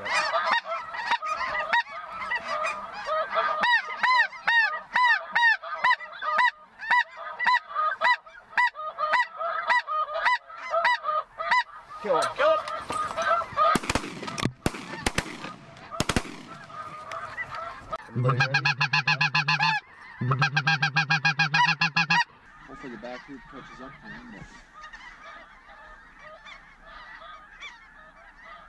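Snow geese honking in a dense, rapid chorus of high calls, followed by several sharp shotgun reports in quick succession about halfway through. Then two loud bursts of fast, evenly pitched goose calling close by, and fainter calling after a sudden drop.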